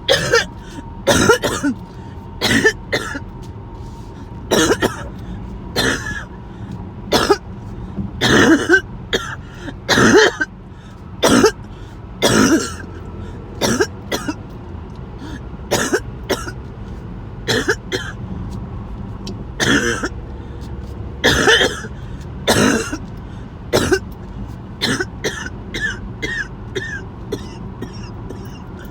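A person coughing harshly over and over in a long coughing fit, with throat clearing. The coughs come about once a second, sometimes in quick runs of two or three, over a steady low hum.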